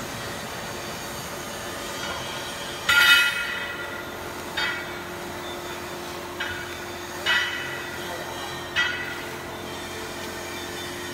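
CNC oscillating knife cutting machine running with a steady hum. It gives five sudden high-pitched squeals, each fading quickly, the loudest about three seconds in.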